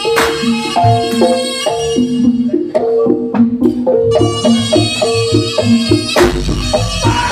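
Jaranan (East Javanese horse-dance) music played live through a PA sound system: a stepping melody of short pitched notes over a steady drum beat. Two loud crashes ring out, one just after the start and one about six seconds in.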